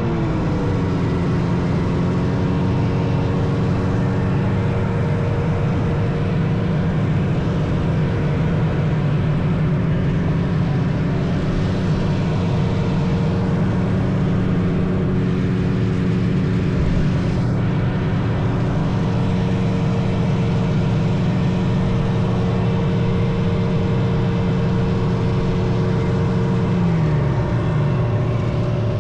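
Vintage snowmobile engine running steadily at trail cruising speed, holding one pitch; about two seconds before the end the revs drop as the throttle eases off.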